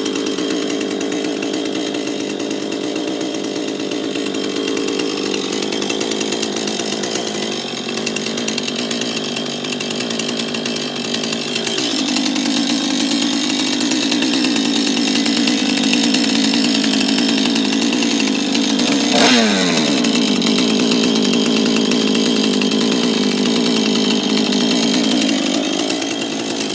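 A small engine running steadily, its pitch dropping a little about twelve seconds in, sweeping down sharply near the twentieth second and climbing again near the end.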